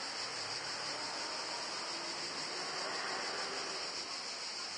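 Steady, high-pitched buzzing of a cicada chorus in the park trees, unbroken throughout.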